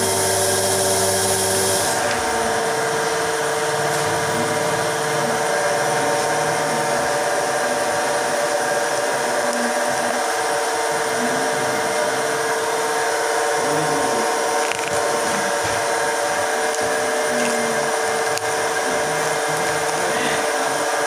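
A motor running steadily, humming with several held tones. About two seconds in, a deeper layer and a high hiss cut out, leaving the steadier hum.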